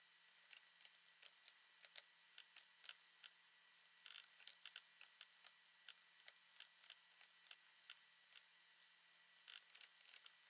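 Faint, irregular clicking of a computer mouse and keyboard, a few dozen sharp clicks with quick runs about four seconds in and again near the end.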